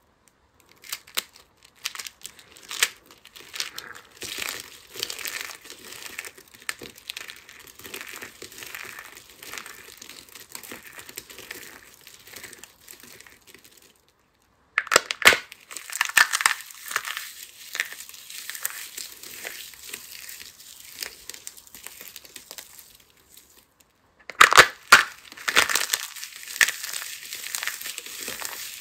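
Dry, hardened soap crushed and crumbled by hand: dense crunchy crackling as brittle soap breaks apart. Later, hollow soap shells packed with glitter are squeezed to pieces in the palms. The sound stops briefly twice, at about 14 and 24 seconds in, each time restarting with sharp loud crunches.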